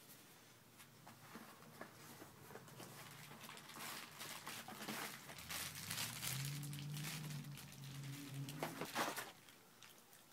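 Keyboard packaging being handled and unwrapped: plastic crinkling and rustling, quiet at first and busier through the middle, with a few sharper crackles about nine seconds in.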